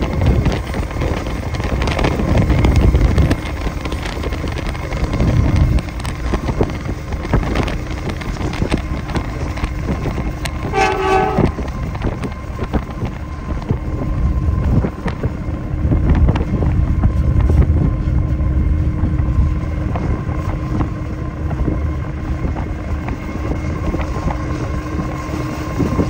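Diesel freight locomotive running past with a steady low rumble, mixed with wind and road noise from pacing alongside it. About eleven seconds in, a train horn sounds briefly.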